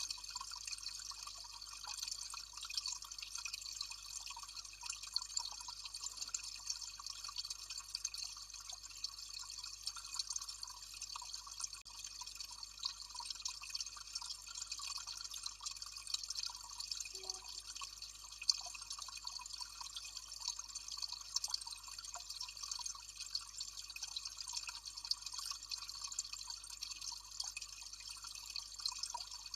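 Small cascade of water trickling and splashing steadily, a dense patter of fine drips.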